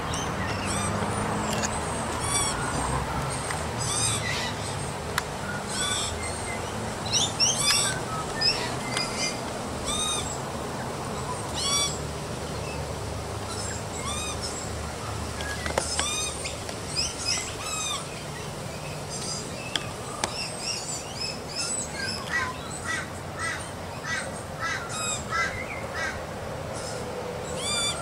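Young Australian magpie calling: many short, high squawks and chirps at irregular intervals, coming in a quicker run a little before the end, over a steady low hum.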